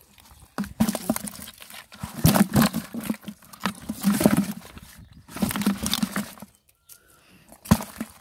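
Splashing and rustling in shallow water among water hyacinth as a push net is worked, coming in irregular bursts of a second or so.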